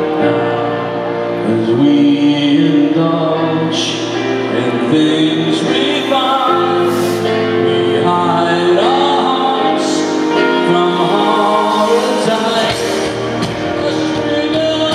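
Live performance of a piano ballad: a man singing with piano and band accompaniment.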